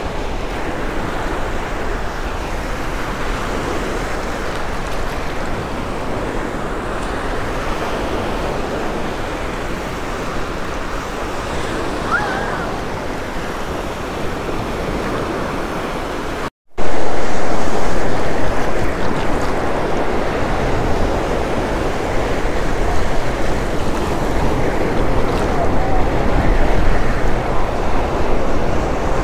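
Ocean surf washing in and breaking on a sandy beach, a steady rush of water. About two-thirds of the way through it cuts out for a moment, then comes back somewhat louder.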